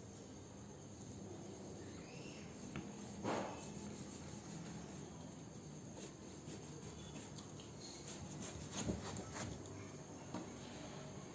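Crickets chirring steadily, with scattered light knocks and scrapes from a watermelon being cut.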